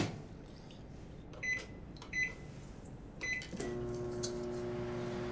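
Microwave oven being started: a sharp click, three short keypad beeps as a 15-second time is keyed in, then the oven starts up about three and a half seconds in and runs with a steady hum.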